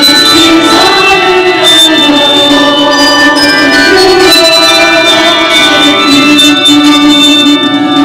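Church handbell choir ringing held chords together with a mixed adult choir singing a slow hymn.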